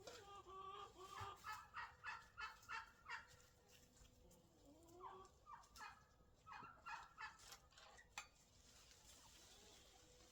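Chickens calling: a fast run of short clucks over the first three seconds, then two shorter runs about five and seven seconds in, all faint. A single sharp click comes near the end.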